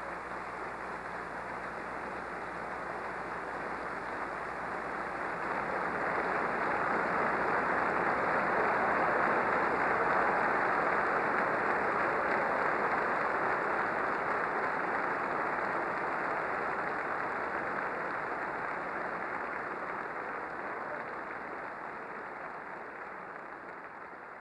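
Large assembly hall audience applauding steadily, swelling to its loudest about ten seconds in and then slowly dying away.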